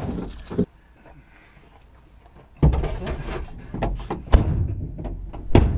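A low rumble with a series of knocks and thuds, the loudest about four and a half seconds in and near the end, after a quiet stretch of about two seconds.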